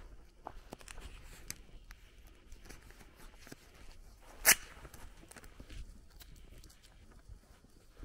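Soft footsteps of a person walking over grass and a dirt track, with scattered small clicks. One sharp, loud click sounds about halfway through.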